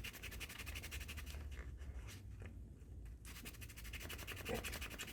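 A small brass door-lock wafer rubbed quickly back and forth on 2,000-grit sandpaper: faint, fast rasping strokes in two spells with a short pause between them, lightly cleaning tarnish off the brass.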